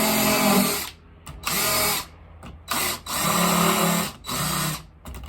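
Cordless drill spinning a countersink bit into timber in four short bursts of the trigger, widening the top of the pilot hole so the screw head will sit below the surface.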